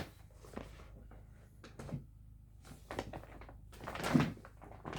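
A few short knocks and handling sounds, with the loudest one about four seconds in.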